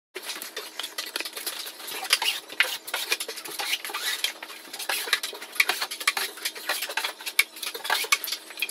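Metal drywall taping knife scraping and clicking against drywall and a mud pan in quick, irregular strokes, spreading setting-type joint compound ("90") over the drywall joints.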